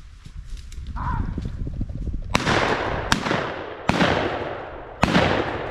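Four shotgun shots from more than one hunter in quick succession, each crack trailing off in a short echo.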